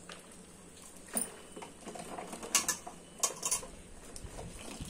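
Hands squeezing water out of wet grated white radish over a stainless steel bowl, with the liquid pattering into the bowl and a few sharp clicks against the metal, about a second in and then several between two and a half and three and a half seconds.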